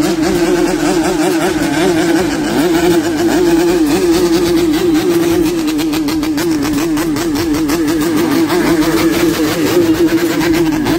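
Motorcycle engines running at steady speed as the bikes ride alongside, a continuous engine note that wavers rapidly up and down in pitch.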